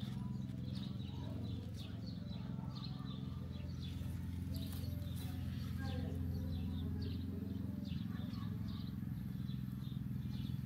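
Small birds chirping over and over over a steady low mechanical drone.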